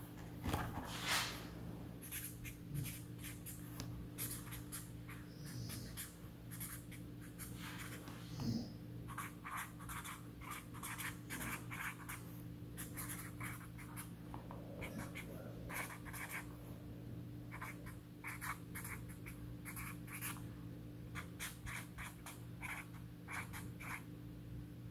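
Sharpie felt-tip marker writing on a pad of sticky notes: short scratchy strokes in quick runs with brief pauses. A faint steady low hum runs underneath.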